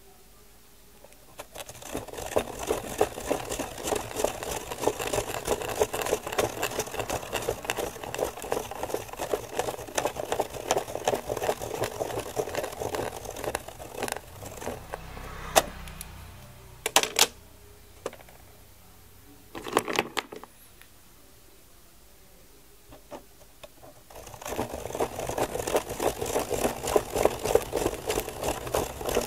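Plastic Spirograph gear wheel driven around the inside of its toothed ring by a pen, the teeth clicking in a rapid rattle together with the pen tip scratching on paper. About halfway it stops for several seconds, with only a few sharp clicks, then the rapid clicking starts again.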